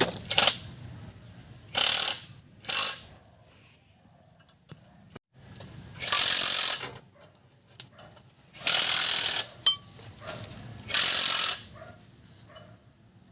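A ratchet wrench being worked in about six short bursts of clicking, with pauses between them.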